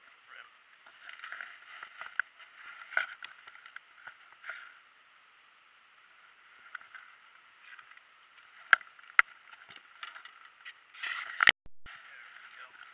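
Scattered knocks and bumps against a plastic kayak with rustling between them, as a freshly caught sunfish is handled and laid on the kayak floor; a louder cluster of knocks comes near the end.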